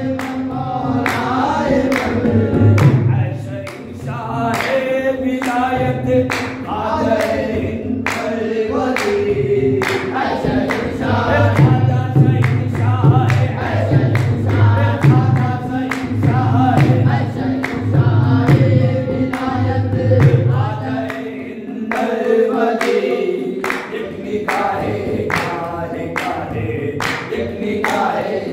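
Qawwali: a group of men singing together in chorus over a harmonium, with steady rhythmic hand-clapping.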